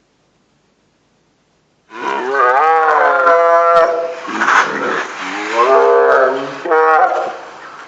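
Silence for about two seconds, then a tiger roaring: two long, loud calls that rise and then fall in pitch.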